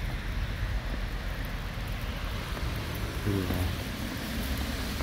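Steady rushing noise of wind buffeting a phone's microphone in falling snow, with car traffic on a snow-covered road.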